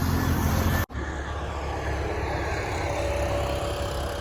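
Steady low rumble of motor traffic and engines on a street. The sound cuts out for an instant about a second in.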